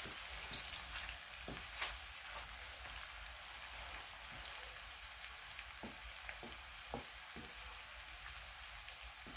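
Sliced onions frying in oil in a pan: a steady sizzling hiss, with occasional scrapes and taps from a wooden spoon stirring them.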